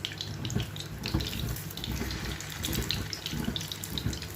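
Chicken burger patties sizzling in hot oil in a frying pan over low heat, a steady hiss with many irregular small crackles and pops.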